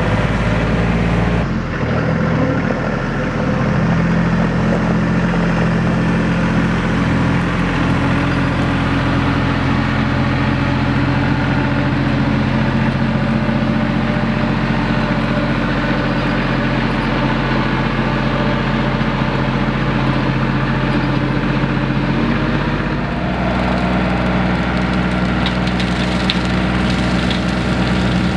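RK compact tractor's diesel engine running steadily. The engine note shifts slightly about a second and a half in and again near the end.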